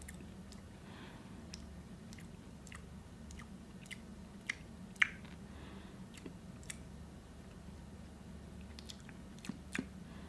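A person chewing a small roasted cricket: faint, irregular little clicks as it breaks between the teeth, a couple of louder ones about halfway through.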